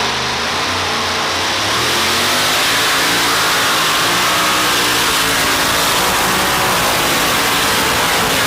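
Pulling tractor's engine at full throttle under load during a tractor-pull run: a loud, continuous engine noise with a lot of hiss, growing slightly louder about two seconds in.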